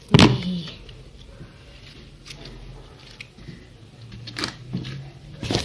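Slime being kneaded and mixed by hand, sticky squelches and short pops and crackles, with a sharp loud pop just after the start.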